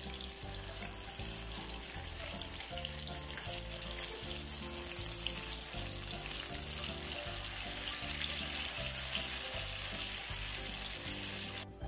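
Turon, banana-and-jackfruit spring rolls, deep-frying in a wok of hot oil, which sizzles steadily, over background music.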